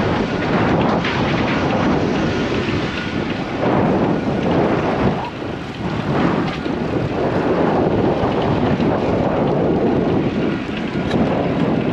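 Wind buffeting the microphone of a camera on a road bike ridden into a gusty headwind: a loud, uneven rush of noise that rises and falls with the gusts.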